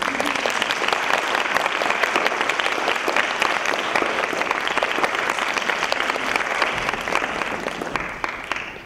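Audience applauding: dense clapping that holds steady, then dies away near the end.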